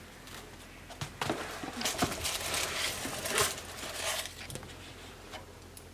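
Rustling and scraping of a small cardboard gift box being handled and its lid pulled off, with a few light knocks, for about three seconds.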